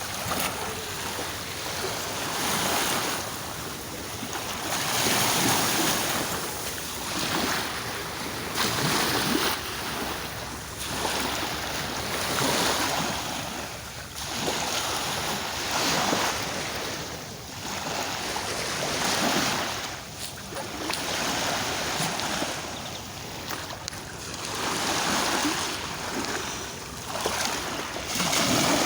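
Sea waves breaking and washing on the shore, the surf swelling and falling back every two to three seconds, with some wind on the microphone.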